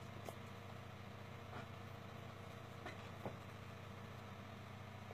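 Steady low background hum with a few faint, short taps scattered through it.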